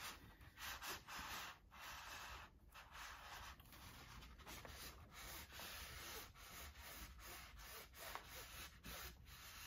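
Cricut Mini Press rubbing over kraft paper as it is pushed around under firm pressure to heat a neck-tag transfer onto a shirt: a faint papery rubbing in repeated strokes.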